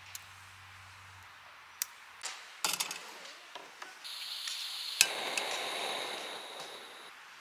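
Metal grill plate and mesh grate clinking and clattering as they are set onto a portable gas canister stove. About four seconds in the gas valve is opened and the burner hisses, a sharp click of the igniter comes a second later, and the lit burner keeps hissing steadily, easing off near the end.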